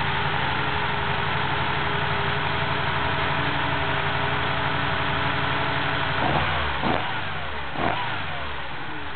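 Dual-plug 2.4-litre four-cylinder boxer engine on individual throttle bodies idling steadily, then blipped by hand three times about six, seven and eight seconds in, each rev rising and dropping straight back to idle with a little bark from the individual throttles.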